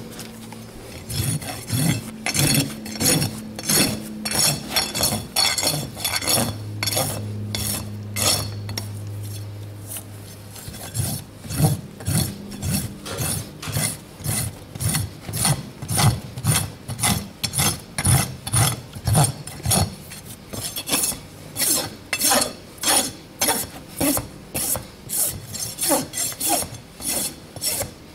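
Farrier's hoof rasp drawn back and forth over a shod horse's hoof wall, a steady run of rough scraping strokes about two a second.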